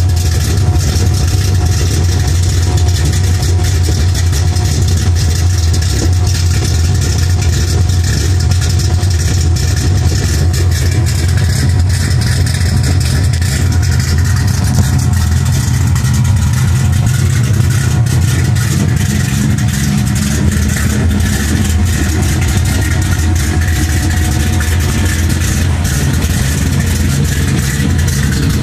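Modified car engine idling steadily with a low, even exhaust note; the tone shifts slightly about two-thirds of the way through.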